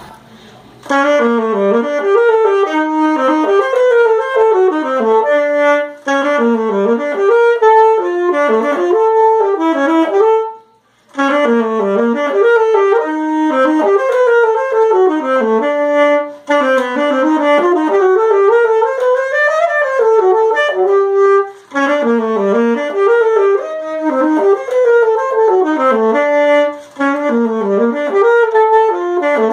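Unaccompanied alto saxophone playing a fast melody of quick rising and falling runs. It starts about a second in, with brief pauses every few seconds.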